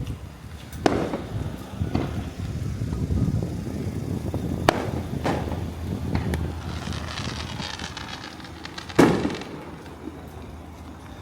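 Fireworks display: aerial shells bursting in a series of sharp booms, the loudest about nine seconds in, over a steady low rumble. A stretch of dense crackling comes from crackle shells between about six and eight and a half seconds.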